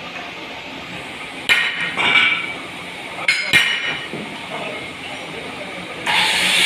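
Steel loom-frame parts knocking and clinking against each other as the channel members are fitted to the cast-iron side frames: four sharp metallic knocks with a short ring. Near the end a loud steady noise starts up, an angle grinder cutting steel.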